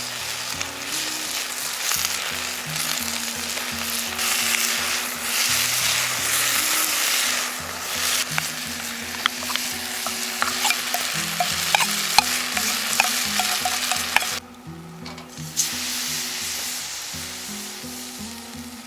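Food sizzling and frying in a pan over a campfire while it is stirred, with scattered sharp crackles and ticks. The sizzle drops away sharply about fourteen seconds in, then returns more quietly.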